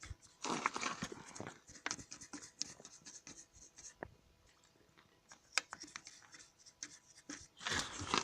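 Hand cleaning inside a motorcycle engine case: scraping and rubbing with scattered small clicks and knocks of metal, and two longer scrubbing strokes, one about half a second in and one near the end.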